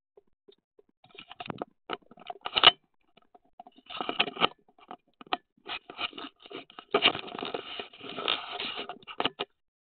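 Handling noise from a small camera's microphone: hands and a fleece jacket scrape and rub against the camera in irregular bursts, with clicks between them and the loudest scrape about two and a half seconds in.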